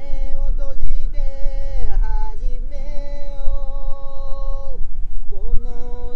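A man singing in a high voice to his own acoustic guitar strumming. He holds one long note from about three seconds in until nearly five seconds, breaks off briefly, then sings on. A steady low rumble runs underneath.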